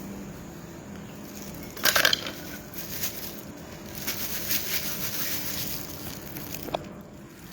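Crinkling and rustling of something being handled and crumpled, with a louder burst about two seconds in, over a steady low hum.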